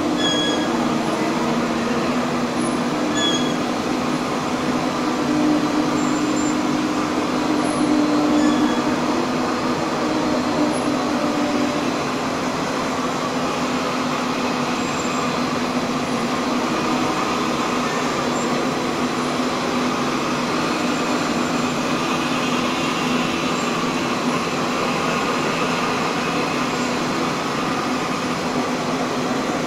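Instant noodle production line running: a steady machine hum and whir from the motors and dough-sheet rolling machines, with a low drone that weakens after about twelve seconds. A few faint high squeaks come in the first few seconds.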